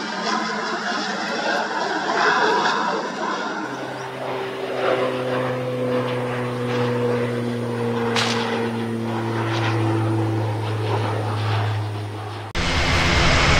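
Beechcraft King Air 350i twin turboprop flying past: a steady propeller drone with a few level tones above it. About a second before the end the sound cuts abruptly to the louder, rougher run of an Airbus A400M's turboprops.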